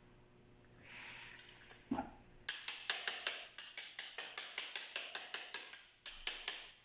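A single knock, then a fast run of short scraping strokes, about five a second, with a brief pause near the end.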